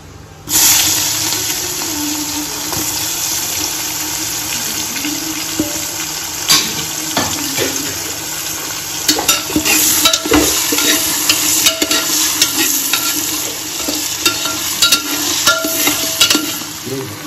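Sliced onions hit the hot fat in an aluminium pressure cooker and start sizzling suddenly about half a second in, then fry steadily. From about six seconds in, a ladle clicks and scrapes against the pot as they are stirred.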